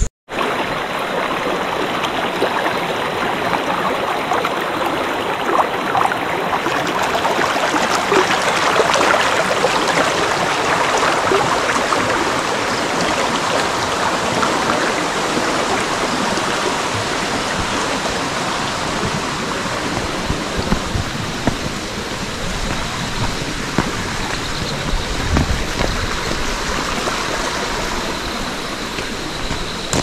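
Forest stream running full with monsoon rainwater, a steady, fairly loud rush of water over rocks.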